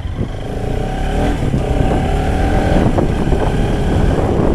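Bajaj Pulsar RS200's single-cylinder engine pulling under acceleration, its pitch climbing and getting louder over the first three seconds.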